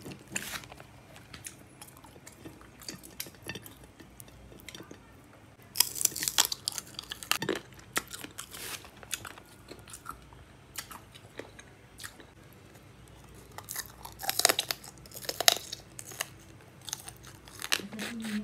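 Close-up chewing and crunching as curried lobster legs are cracked and bitten, the hard spiny shell crackling. Sparse clicks run throughout, with two thick bursts of crackling about six seconds in and again about fourteen seconds in.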